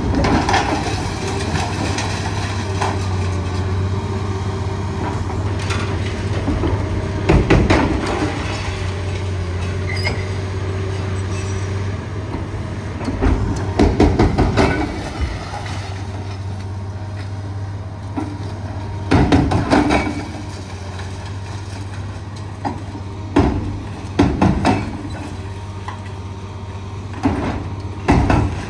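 Liebherr 954 crawler excavator's diesel engine running steadily, with about six short, loud bursts of impact noise from the hydraulic breaker demolition work.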